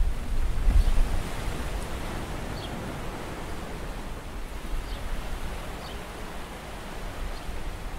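Sea waves washing over a rocky shore, a steady hiss of surf. Wind buffets the microphone with a low rumble in about the first second, then eases.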